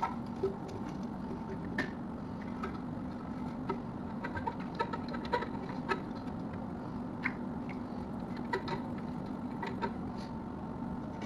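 Light, scattered clicks and taps of small parts being handled, over a steady low hum.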